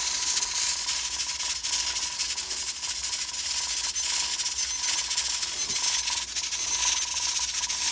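Stovetop pressure cooker at full pressure: steam hissing steadily from the vent under its weighted regulator, which rattles lightly, with a thin steady whistle.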